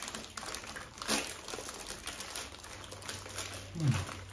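Plastic wrapper crinkling as a packaged blueberry muffin is unwrapped, in irregular crackles with a louder crinkle about a second in. Near the end comes a short, low vocal "mm" that falls in pitch.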